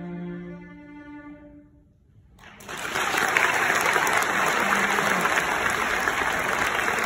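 The last notes of a solo cello ring and fade away over about two seconds. After a brief hush, an audience breaks into steady applause, which is the loudest sound.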